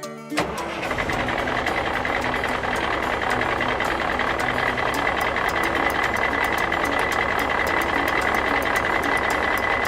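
Trailer truck's diesel engine running steadily, a low rumble with fast, even clicking and a constant high whine over it, starting about half a second in.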